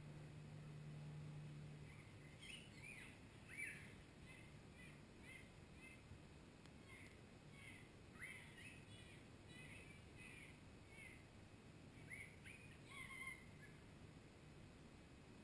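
Faint bird chirps: a scattered series of short, quick, falling calls that start about two and a half seconds in and stop shortly before the end. A faint low hum is heard in the first two seconds.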